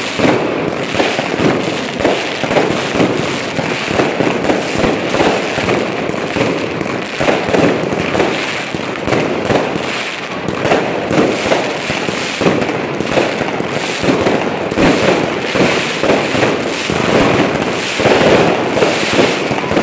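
New Year fireworks going off in a continuous barrage: rockets and aerial shells bursting overhead, their bangs crowding one on another without a pause.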